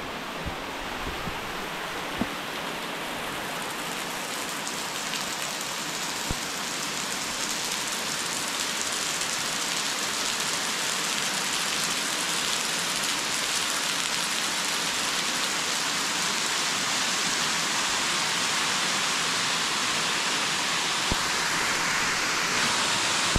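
Rushing water of a gorge waterfall: a steady hiss that slowly grows louder, with a few light knocks in the first few seconds.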